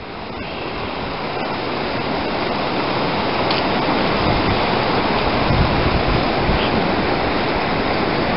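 Rushing mountain creek: a steady hiss of fast-flowing water that grows louder over the first three seconds, then holds even.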